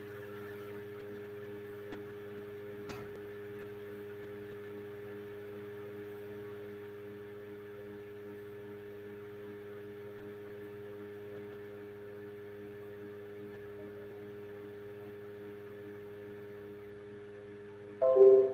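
Steady electrical hum of several even tones on the audio line. Near the end, a short, loud notification chime from the video-call app, the alert that recording of the meeting has started.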